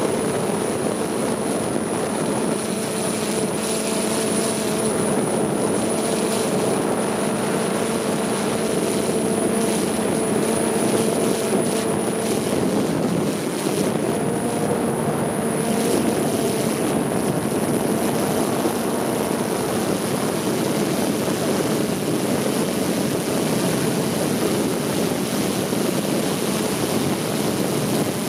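Helicopter in flight, heard from aboard: a steady engine and rotor noise with a constant hum that does not change.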